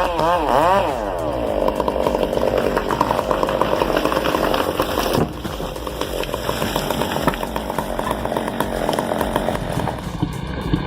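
Chainsaw engine revving up and down in the first second, then running steadily at high speed. The sound changes abruptly about five seconds in and carries on a little quieter.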